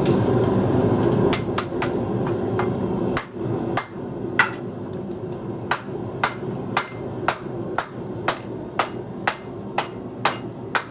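Hammer blows on a sword blade being forged, sharp strikes that start about a second in and settle into an even rhythm of about two a second, over a steady background roar that is louder for the first three seconds.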